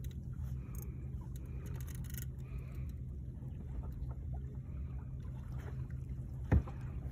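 A steady low hum, like an engine or motor running, with faint scattered ticks over it. About six and a half seconds in comes a single sharp thump, the loudest sound.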